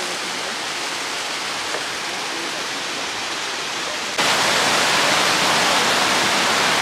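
Rushing water of a waterfall and rocky stream, a steady hiss that jumps suddenly louder and brighter about four seconds in, where a nearer cascade is heard.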